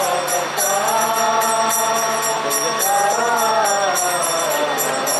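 Devotional chant sung in long, gliding phrases over backing music, with a steady beat of small metallic strikes.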